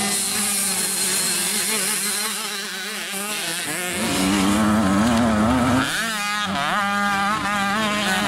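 Small two-stroke youth motocross bikes racing, engines revving up and down through the corners. About four seconds in one bike passes close by, louder and lower, then revs in quick rising and falling whines.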